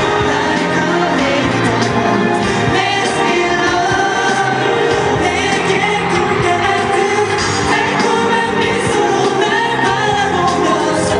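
Male singer singing a pop song live into a microphone over steady instrumental backing.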